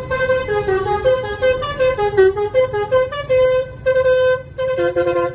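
Telolet basuri multi-tone bus horn playing a tune: loud horn notes that step up and down in pitch in quick succession, over a low steady hum.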